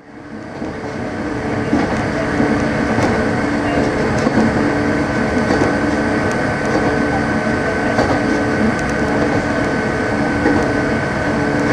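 JR 115-series electric train (KuMoHa 115 motor car) running along the line, heard from inside the cab: a steady motor and running noise with a held whine and a few sharp clicks, fading in over the first second.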